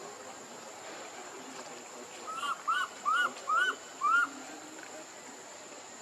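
An animal calling: five hooting notes in a row, each rising and then falling in pitch, about two a second, near the middle.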